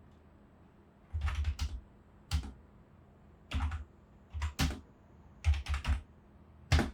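Typing on a computer keyboard: short bursts of a few keystrokes with pauses between them, as several search keywords are entered.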